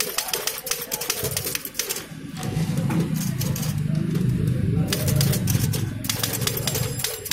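Keys and typebars of an old manual Hindi typewriter clattering in rapid typing. The clatter stops for about three seconds in the middle, while a lower, steady sound comes through, and then the typing resumes.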